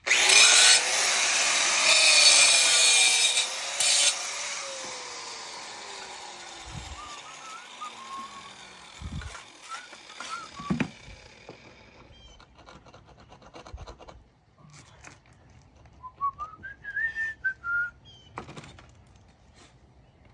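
An electric cutting tool, used for the stack-stone veneer work, cuts loudly for about four seconds. It is then switched off, and its motor winds down with a falling pitch over several seconds. Later come a few faint knocks and short chirps.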